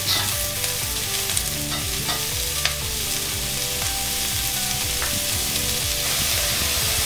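Chopped onion, celery and carrot sizzling steadily in oil in a cast iron Dutch oven as they cook down, with a few light clicks.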